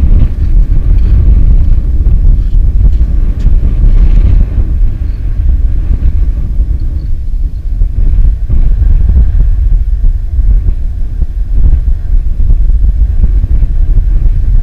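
Wind buffeting the microphone: a loud, uneven low rumble with no pitched sound, broken by a few faint knocks.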